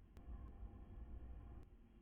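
Near silence: a faint steady low hum, with a faint click about a fifth of a second in.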